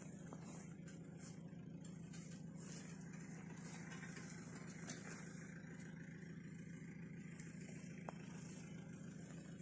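A steady, low machine hum, with a couple of faint clicks.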